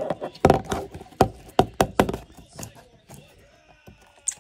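A plastic slime jar knocked several times against a wooden tabletop while stiff, hardened slime is pressed down into it. It makes a series of sharp knocks, most of them in the first two seconds.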